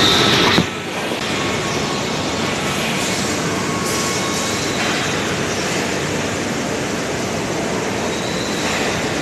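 Steady din of industrial machinery, with a louder high whine that cuts off abruptly about half a second in.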